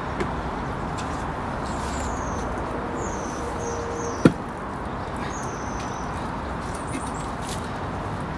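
Steady outdoor hiss as a magnet-fishing rope hauls a long metal pole out of the river, with one sharp knock about four seconds in.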